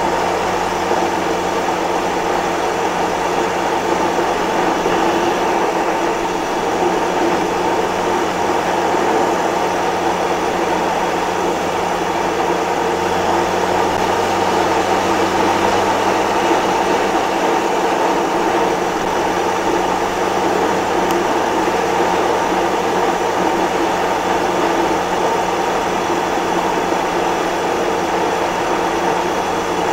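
Motorcycle riding at a steady cruising speed: a constant engine drone under a steady rush of wind and road noise.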